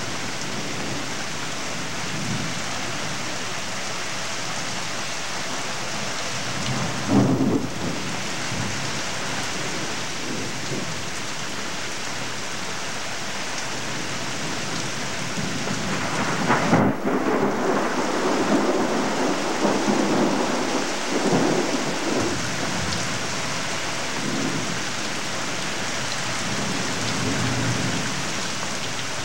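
Steady heavy rain with thunder: a short rumble about seven seconds in, and a longer rolling rumble from about seventeen seconds in that lasts several seconds.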